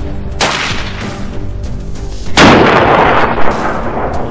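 Two rifle shots from a .308 Thompson Center Compass bolt-action: a sharp crack about half a second in, then a louder blast about two seconds later that rings out for over a second. Background music runs underneath.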